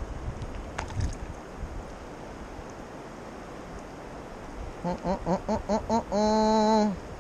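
Wind and rushing river water, then near the end a person's voice makes six quick, short pitched sounds followed by one held note about a second long, without words.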